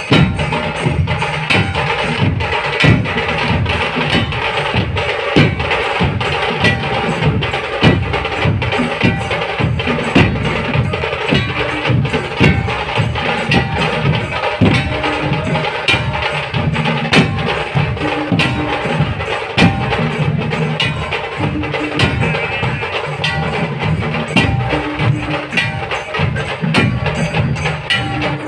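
A troupe of large barrel drums (dhol) playing together in a loud, fast, continuous rhythm of deep booming strokes and sharp stick cracks.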